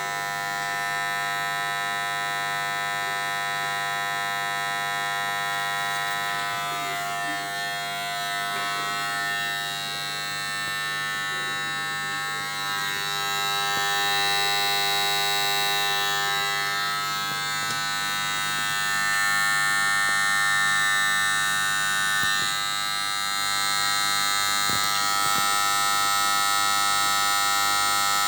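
Resanta ASN-10000/1-EM electromechanical voltage stabilizer humming strongly just after being switched on: a steady electrical buzz of many fixed tones, growing a little louder about halfway through. The owner takes the hum as a disappointing flaw in a new unit.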